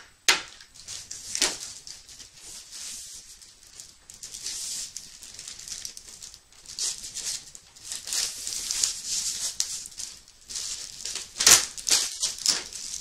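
Plastic packaging crinkling and rustling in irregular bursts as it is handled and pulled off a boxed vinyl figure, with a few sharp crackles, the loudest near the end.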